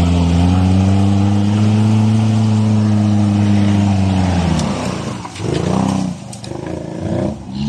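Off-road 4x4 engine revving hard, held at high revs with a slight rise and fall for about four and a half seconds, then dropping off. A couple of shorter bursts of throttle follow.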